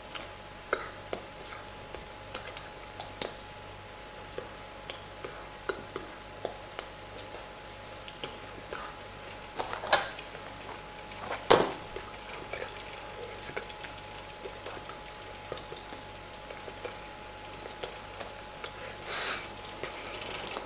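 Scattered soft taps and clicks of hands and clothing as a person signs, with two louder knocks about halfway through as a small cardboard carton is handled, and a brief rustle near the end. A faint steady thin tone runs underneath.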